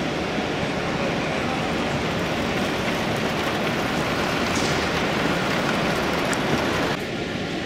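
Steady rushing noise of a busy exhibition hall, with no distinct event standing out. It drops suddenly about seven seconds in.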